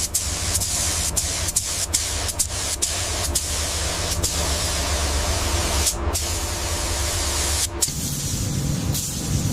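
Steady, loud spraying hiss, such as compressed air or a spray gun in a workshop, with a low steady hum beneath it. It is broken by several brief cuts.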